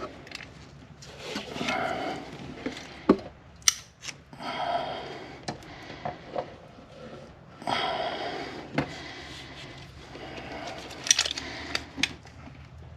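Seam sealer being smeared and pressed into a sheet-metal seam by gloved fingers: rubbing, squishing strokes about a second long, several times over, with a few sharp clicks and taps in between.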